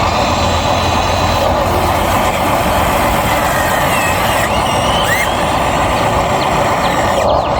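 Steady mechanical whirring of a Huina radio-controlled excavator's electric motors and gear drives working. A few short chirps come through about halfway.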